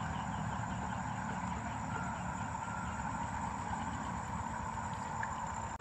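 Insects chirping steadily in a field chorus, one of them in a fast, even pulse.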